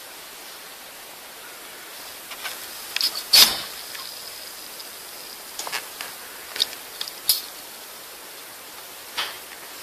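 Steady hiss with a handful of short, sharp plastic clicks and taps, the loudest about three and a half seconds in. The clicks come from a syringe being handled against a Canon inkjet printhead while it is flushed to clear clogged nozzles.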